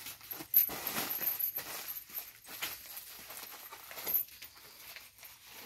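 Woven plastic sack being handled and tied shut with a rope, its fabric crinkling and rustling in irregular sharp crackles, the loudest about half a second in.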